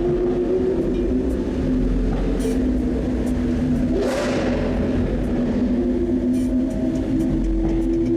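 Lamborghini Aventador SV's V12 engine running at steady revs, heard from inside the car, with a brief rush of noise about four seconds in.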